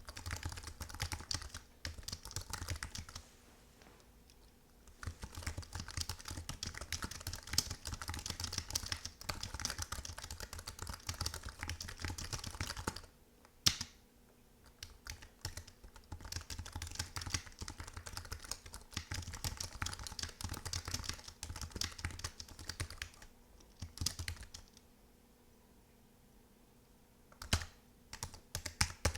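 Fast typing on a computer keyboard: rapid key clicks in runs lasting several seconds, broken by a few short pauses, with an odd single louder key strike in between.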